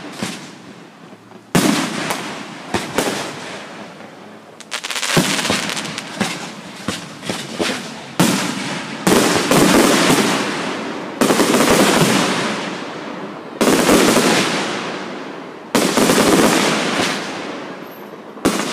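Aerial fireworks shells bursting one after another, about eight sharp bangs that each trail off, with a run of rapid crackling pops about five to eight seconds in.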